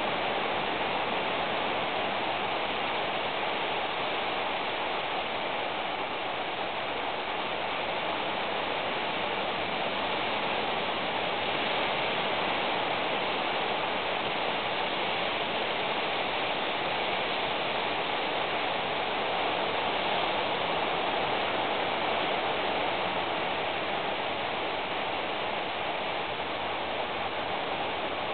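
Steady rain, an even hiss with no thunder claps or other distinct sounds.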